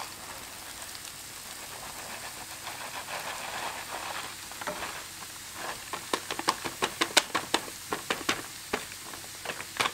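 Hot coconut oil and button mushrooms sizzling in a frying pan as cauliflower rice is poured in. In the second half there are many sharp, irregular clicks and crackles, several a second.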